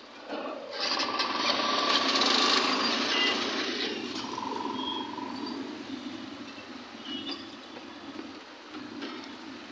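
Busy street traffic heard from a moving motor scooter: engine and road noise that swells loudly in the first few seconds, then settles to a steadier, quieter level.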